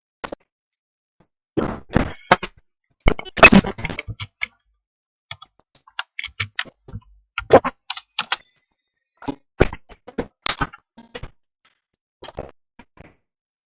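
Irregular sharp clicks and knocks with brief high chirps, separated by dead silence, on a recorded Viber voice call; the loudest cluster comes about three and a half seconds in.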